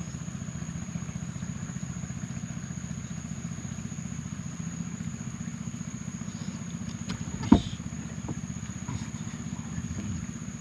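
A motor running steadily in the background, a low drone with a fine even pulse, under a thin steady high tone. A single sharp knock about seven and a half seconds in.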